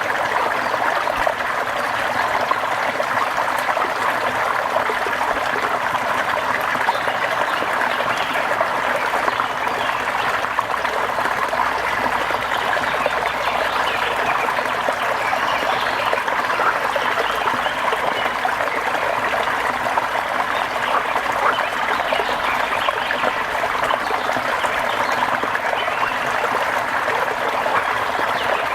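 Steady rain, an even, unbroken wash of falling water with no change in level.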